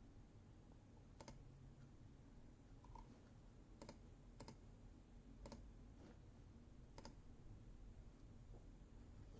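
Near silence: room tone with about six faint, isolated clicks scattered at irregular intervals.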